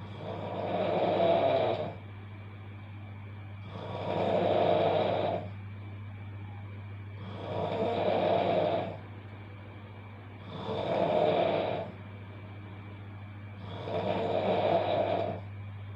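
A sleeping person snoring loudly: five snores, each about a second and a half long, coming roughly every three and a half seconds, over a steady low hum.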